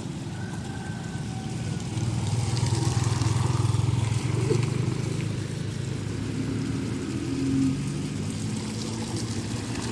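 A motor vehicle's engine running, growing louder from about two seconds in to about five seconds in, with a short upward slide in pitch about seven and a half seconds in.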